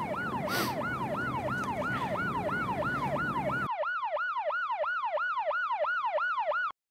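Emergency-vehicle siren on a fast yelp, each sweep falling in pitch, about three a second. The background noise under it drops away about halfway through, leaving the siren alone, and the siren cuts off abruptly near the end.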